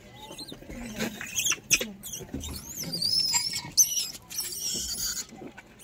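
Gray langurs squealing in high, wavering calls for several seconds as one lunges at another in a squabble.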